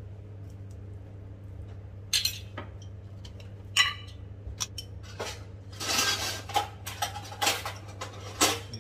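Metal spoon clinking against a steel plate and a glass sauce jar: a few separate clinks, then a busier run of clinks and clatter near the end, over a steady low hum.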